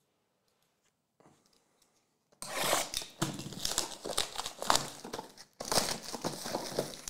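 Clear plastic shrink wrap being torn and crumpled off a stack of sealed trading-card hobby boxes. It crackles loudly from about two and a half seconds in, with a short break near the middle.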